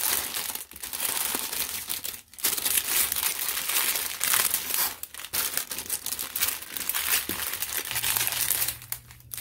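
Small plastic bags of diamond-painting drills crinkling and rustling as they are handled and sorted, with a few brief pauses.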